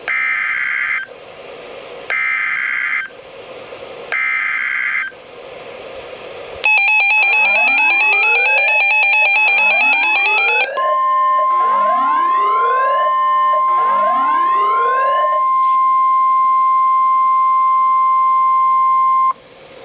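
Emergency Alert System SAME header data bursts received on NOAA Weather Radio: three short screeching bursts about a second apart. About six seconds in, a harsh electronic alarm with repeating rising whoops starts. The steady 1050 Hz weather radio warning alarm tone comes in under it about four seconds later and holds alone after the whoops stop.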